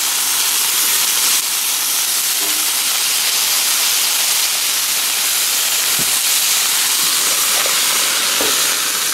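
Vegetables sizzling in hot oil in a frying pan over a propane camp-stove burner: a steady, even hiss.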